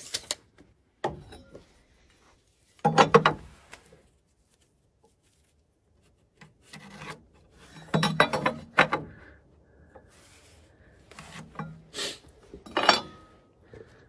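Wooden framing lumber scraping and rubbing against wood in a few short bursts, as the last floor joist is worked into place.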